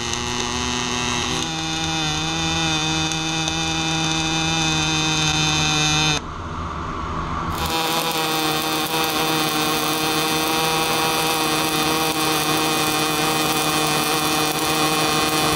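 Pulsed MAG welding arc from an EWM Picomig 305 Puls inverter welding 3 mm steel: a steady, even buzzing hum without spatter. The arc breaks off about six seconds in and strikes again about a second and a half later.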